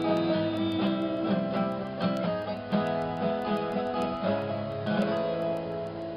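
Guitars playing an instrumental passage, picked notes over strummed chords, cutting off abruptly at the very end.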